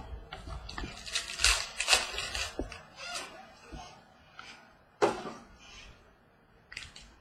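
Foil trading-card packs rustling and tearing as they are opened, and cards being handled and slid, in several short noisy strokes. One sharp tear comes about five seconds in.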